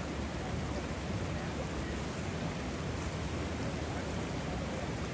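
Steady rushing noise of the Tule River's muddy floodwater in flash flood, pouring through yards and around houses.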